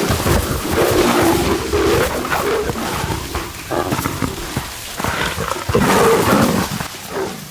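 Two big cats growling and snarling at each other in an aggressive confrontation. The sound comes in two rough bouts, the second starting about five seconds in.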